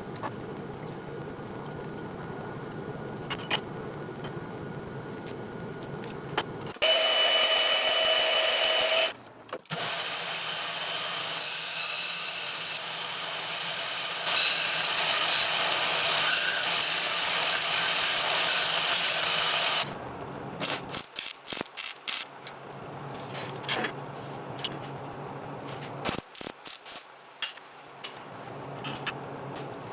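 Metalworking shop power tools: a steady hum gives way about seven seconds in to a loud power tool with a whining tone, then a longer stretch of loud grinding or abrasive noise that stops about twenty seconds in, followed by scattered sharp clicks and taps.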